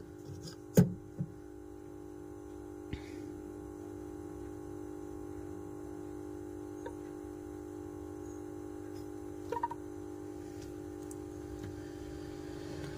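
Steady electrical hum made of a few even tones, with a sharp tap about a second in and a short faint double blip around nine and a half seconds.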